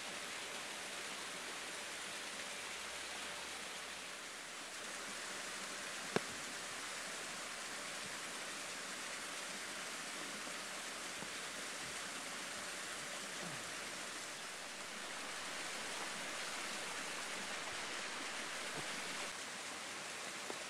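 Waterfall rushing steadily, an even hiss of falling water, with one sharp click about six seconds in.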